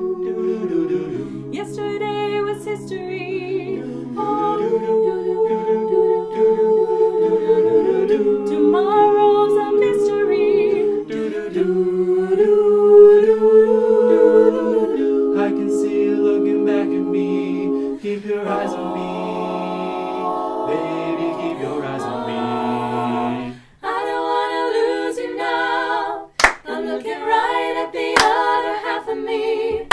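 Mixed-voice a cappella group singing a wordless passage in close harmony, with layered held chords over a sung bass line that turn shorter and more rhythmic toward the end. Two sharp hand claps cut in near the end.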